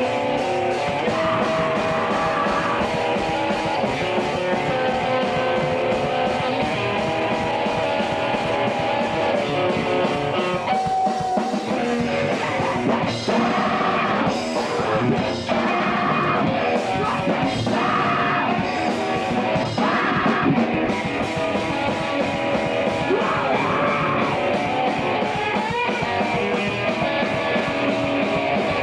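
Loud punk rock music: guitar and drum kit playing, with some singing.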